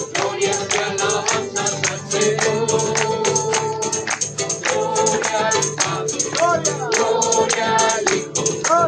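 Group singing of a Spanish-language Christian praise song, carried by a quick, steady percussion beat of about four strokes a second.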